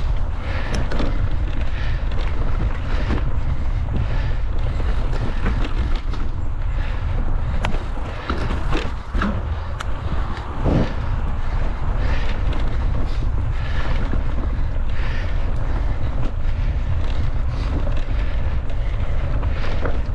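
Mountain bike ridden at speed: wind buffeting the camera microphone as a steady low rumble, with frequent short knocks and rattles from the bike jolting over the ground and a heavier thud about halfway through.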